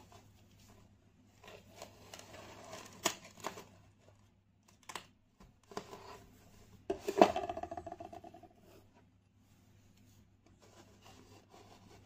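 Kinetic sand being cut and scraped with a blade: soft grainy scrapes and a few sharp taps, then the loudest crunching scrape about seven seconds in, lasting a second or so.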